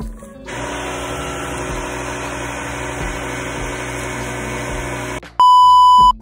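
Microwave oven running with a steady hum, then a single loud electronic beep of under a second near the end.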